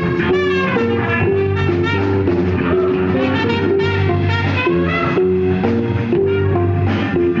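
Live band playing an upbeat funk-jazz instrumental, with bass and brass over a steady groove, in a busy run of short notes.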